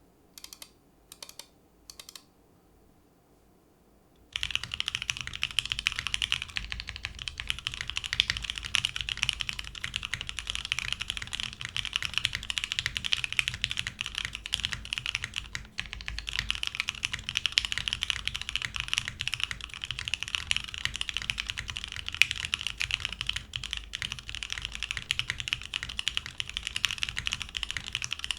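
Typing on a Monokei x TGR Tomo mechanical keyboard: lubed CannonKeys Lavender linear switches in a polycarbonate plate, o-ring mounted with no foam, under GMK keycaps. Three single keystrokes in the first two seconds, then fast, continuous typing from about four seconds in.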